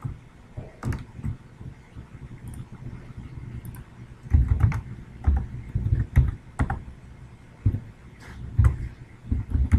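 Computer keyboard keystrokes entering numbers into a calculator. Irregular clicks and dull taps come singly at first, then in quick runs from about four seconds in.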